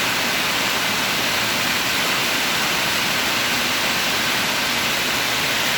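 Heavy rain falling in a downpour: a loud, steady, even hiss.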